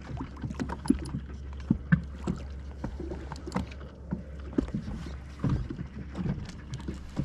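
Small waves slapping against the hull of a fishing boat: irregular light knocks and splashes over a steady low hum.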